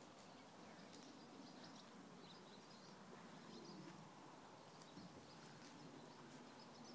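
Near silence: faint outdoor background hiss with a few faint, scattered high ticks.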